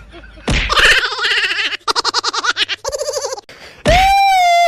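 A thump, then quick, high, pulsing voice-like chatter, and near the end a long held shrill cry.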